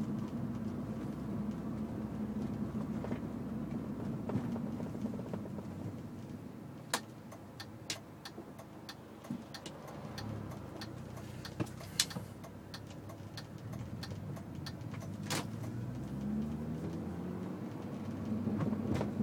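Low drone of a 2008 Mini Cooper S rolling down a slope, heard from inside the cabin, with scattered sharp clicks and knocks in the middle. Near the end a pitched engine note rises as the engine comes up to speed.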